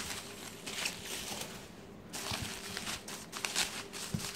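Bubble wrap crinkling and rustling in irregular bursts as a hand moves it about inside a cardboard box, with a brief lull about two seconds in.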